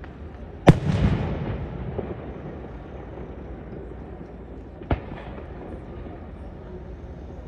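Aerial firework shells bursting: a loud bang under a second in with a long low tail after it, then a smaller bang about five seconds in.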